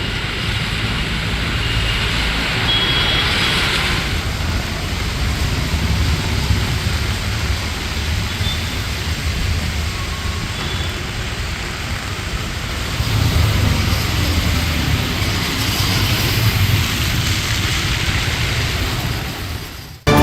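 Stormy outdoor ambience in strong wind: a steady rushing noise with low, gusting rumble on the microphone, swelling louder about two thirds of the way through, with road traffic in it.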